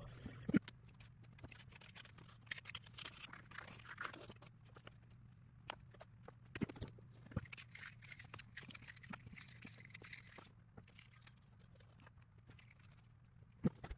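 Small laser-cut wooden model parts and paper being handled on a table: scattered faint clicks, taps and rustles over a steady low hum, with sharper clicks about half a second in and near the end.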